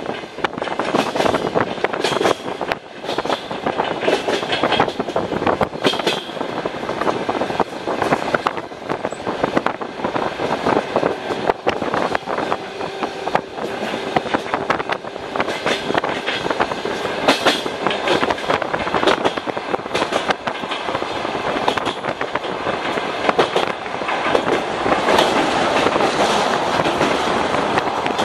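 Passenger train running at speed, heard from a carriage: steady wheel-and-rail rumble with rapid clickety-clack of wheels over rail joints. It grows louder near the end as the train runs onto a steel truss bridge.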